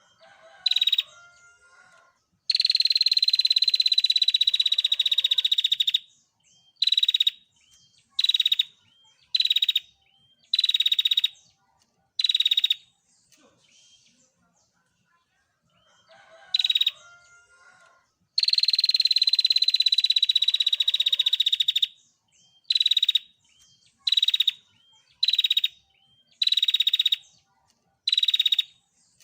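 Female prinia (prenjak) calling with its rapid, high buzzing trill: a short burst, then one long trill of about three and a half seconds, then six short bursts roughly a second apart, the same sequence repeating about halfway through.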